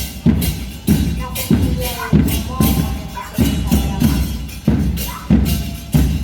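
Murga percussion in a parade: bass drums and cymbals beating a steady, driving rhythm, about one and a half to two strong strokes a second.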